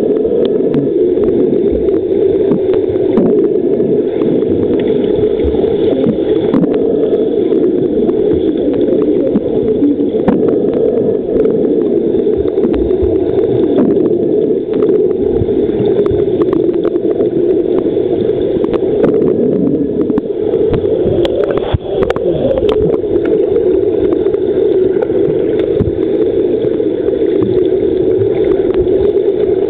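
Swimming pool water heard underwater: a steady muffled churning from swimmers' front-crawl strokes and kicks, with scattered small clicks and knocks.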